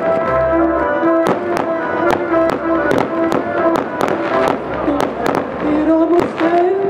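Aerial fireworks going off in sharp bangs, about two or three a second, over music with long held notes.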